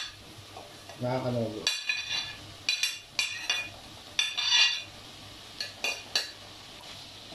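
A metal spoon scraping chopped grilled chicken off a ceramic plate into a pan. Three ringing scrapes of spoon on plate are followed by three short clinks.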